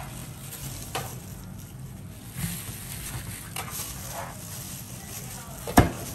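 Cleaver cutting through a crisp, crumb-coated fried crust, with scattered crunches and taps on a plastic cutting board and one sharp chop near the end.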